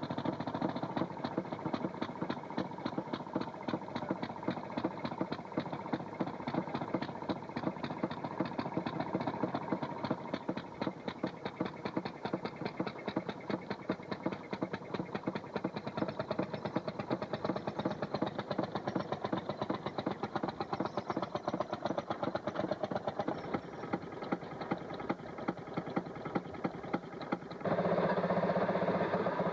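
A railroad motorcar's two-stroke engine running with a rapid, even popping. Near the end the sound turns suddenly louder and steadier.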